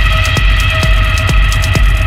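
Electronic dance music with a steady thumping beat, about two beats a second, over held synth tones.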